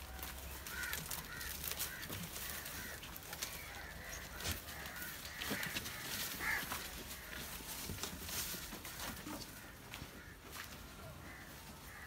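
Birds calling repeatedly in short arched calls, thickest in the first half, over scattered rustling and snapping of leafy branches as goats feed on them.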